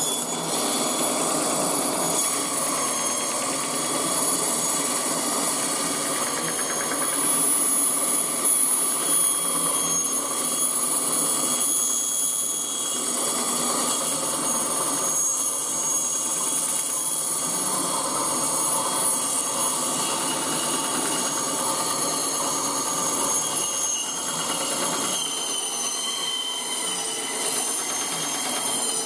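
Ryobi benchtop band saw running steadily while a rack of ribs is fed through its blade: a continuous whine with high ringing tones from the blade cutting through meat and bone.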